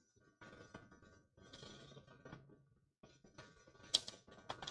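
Faint, scattered muffled noises in a small room, then a few sharp clicks about four seconds in.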